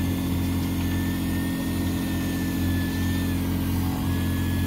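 Boat engine running steadily with an even low hum, a thin high whine holding over it.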